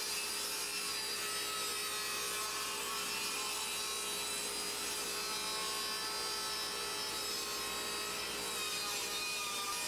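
Bosch 4100XC-10 10-inch jobsite table saw with its 15-amp motor running and the blade cutting through a thick piece of lumber. A steady, even whine and cutting hiss as the wood is fed through.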